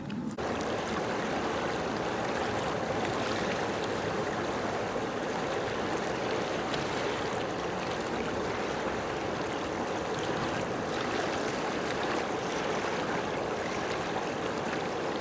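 Steady rushing of water, like waves lapping or a stream, starting about half a second in and holding even throughout.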